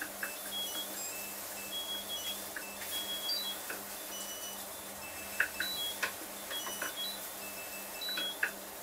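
Samsung Eco Bubble front-loading washing machine running a wash cycle: a steady low motor hum with scattered light clicks and small watery splashes and gurgles from the drum.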